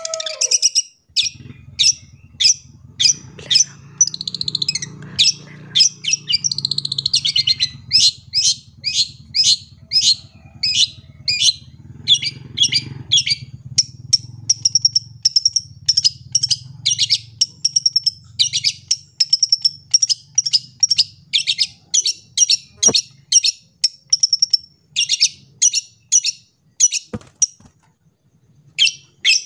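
Long-tailed shrike (cendet) singing a long, fast run of sharp high chirps and trills, several notes a second with short pauses, in a song full of mimicked calls of other birds. A faint low hum sits under the song until about two-thirds of the way through.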